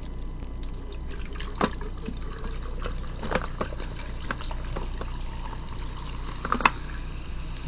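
Cherry lemonade sparkling water poured steadily from a plastic bottle, a continuous splashing trickle with a few small clicks.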